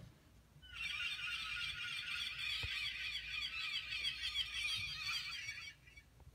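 Recorded seagull cries played through a laptop speaker: a dense stream of short, squawking calls that starts about a second in and cuts off suddenly near the end, a sound effect triggered by touching the painting's Makey Makey contact.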